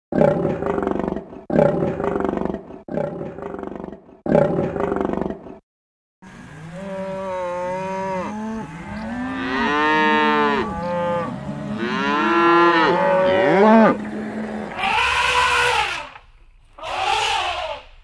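Animal calls in turn. First come four short rough roars about a second apart. After a brief pause there is a string of cries sliding up and down in pitch over a steady low hum, and then three harsh, noisy cries near the end.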